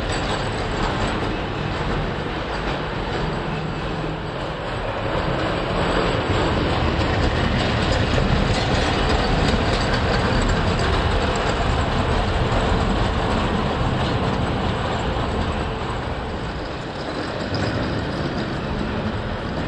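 Märklin tinplate O gauge train running over three-rail tinplate track: a steady noise of wheels rolling on the track.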